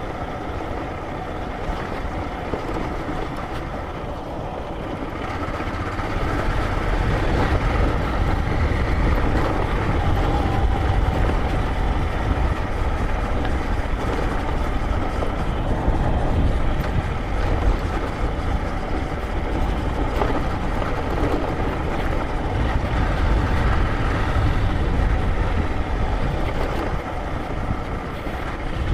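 Motorcycle engine running on the move, mixed with wind rumble on the rider's microphone. It gets louder about six seconds in and then holds steady.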